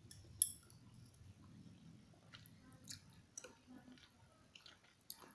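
Close-up chewing of tteokbokki, with scattered wet mouth clicks over a low steady hum; one sharp click about half a second in is the loudest sound.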